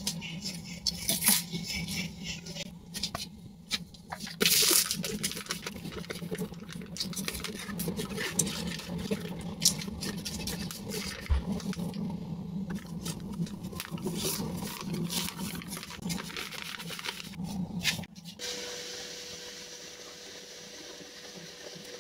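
Kitchen handling sounds: a knife blade knocking against a whole coconut's hard shell, then a plastic bag of rice flour rustling and being snipped open with scissors. After a sudden change near the end, a quieter, smoother sound with a faint steady tone carries on.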